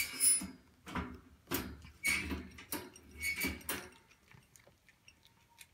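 A cat crunching dry kibble from its food bowl, with the bowl clinking: a crunchy bite about twice a second for about four seconds, then only a few faint clicks.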